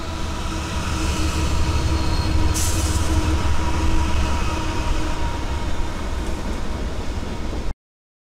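Several diesel-electric freight locomotives passing at close range: a steady deep engine and wheel rumble, with a brief hiss about two and a half seconds in. The sound cuts off abruptly near the end.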